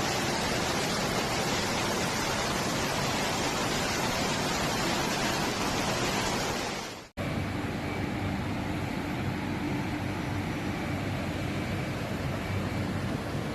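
Steady rushing noise of floodwater and rain. After an abrupt cut about seven seconds in, a duller steady rushing noise follows, with a faint low hum under it.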